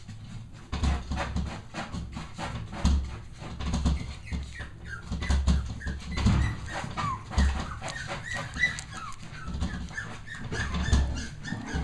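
Young Cavalier King Charles Spaniel puppies whimpering and crying in many short, high squeaks, which come thickest from about four seconds in. Low thumps and rubbing from handling close to the microphone run underneath.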